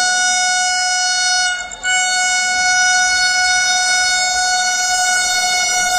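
Vande Bharat Express train horn sounding one long steady note as the train approaches, with a brief break just under two seconds in.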